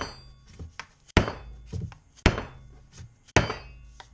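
Mallet striking the outside of a PVC pipe mold: four sharp knocks about a second apart, with a few lighter taps between, as the pipe is tapped around to free a resin casting that has stuck inside it.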